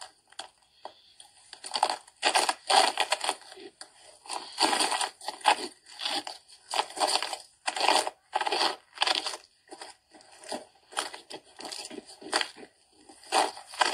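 Footsteps crunching in snow, a series of uneven crunches about one or two a second.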